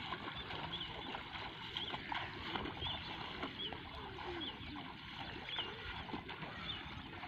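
A bird giving a short high call over and over, about once a second, over steady low outdoor noise.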